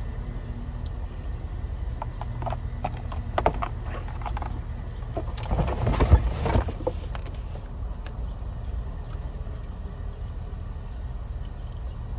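Shopping being loaded into a car trunk: a run of knocks and clatter, then a large cardboard box sliding in over plastic-wrapped packs of bottled water with a scrape and thump about six seconds in, the loudest moment. A steady low rumble runs underneath.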